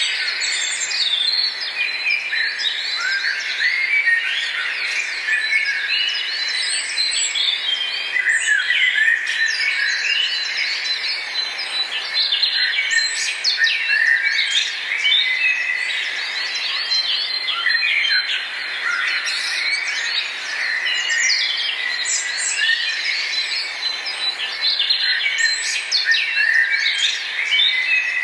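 Dense chorus of many small birds chirping and twittering, short overlapping calls and quick sweeps in pitch, over a thin steady high tone.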